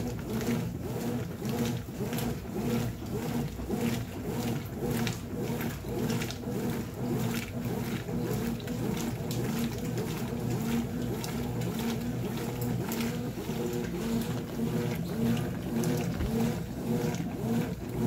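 Brastemp top-load washing machine agitating on its turbo setting at a low water level: a steady motor hum with the agitator churning clothes and water back and forth in an even, repeating sloshing rhythm.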